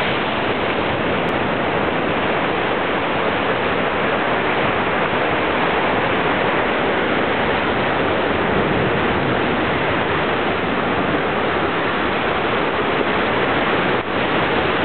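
Ocean surf on a rocky lava shore making a steady, unbroken rush of water noise.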